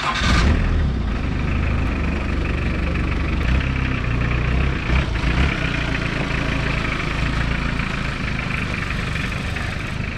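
Commando jeep's engine, just started, running steadily after a louder surge in the first half second.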